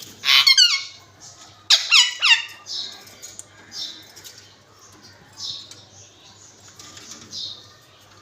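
Pet parrots calling: a few loud, high squawks sweeping down in pitch in the first two and a half seconds, then softer short chirps about once a second.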